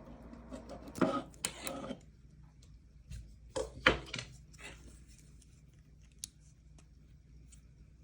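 Noctua NF-A9x14 chromax 92 mm fan making its grinding noise: two bursts of scraping, rubbing clicks about a second long each, then a faint steady hum with a single click.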